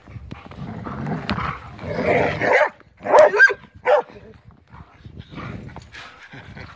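Labrador retriever barking in play, a few short loud barks in quick succession around the middle.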